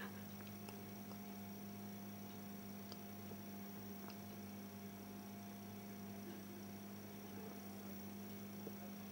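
Faint, steady electrical mains hum: a low, unchanging buzz with no other sound standing out.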